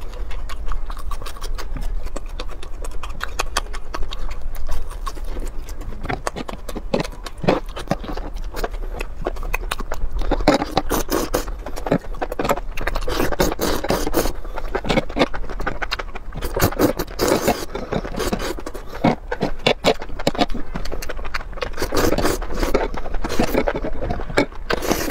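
Eating sounds: chewing and wet smacking, with slurping of chili-sauced enoki mushrooms and a fork scraping and tapping on a baking tray.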